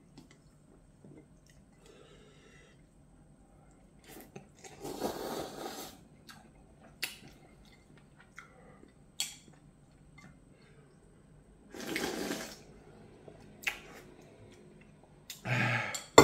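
A person eating instant ramen noodles: loud slurps in three bursts, about five seconds in, about twelve seconds in and near the end, with chewing and a few sharp clicks in between.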